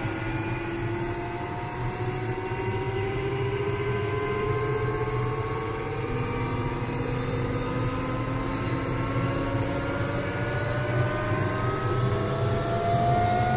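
MD520N NOTAR helicopter's Rolls-Royce (Allison) 250 turboshaft engine winding up after light-off, heard from inside the cockpit. A whine rises slowly and steadily in pitch over a steady low hum as the engine accelerates toward ground idle.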